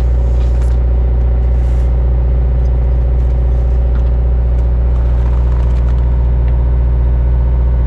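Steady low machine hum with many overtones, unchanging in level and pitch throughout.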